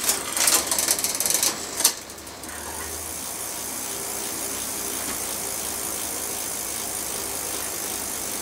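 Mountain bike drivetrain, chain and rear freewheel, turned by hand at the pedals: a rapid run of clicking and rattling for about two seconds that ends in a sharp click. Then a quieter steady whirr as the rear wheel spins on.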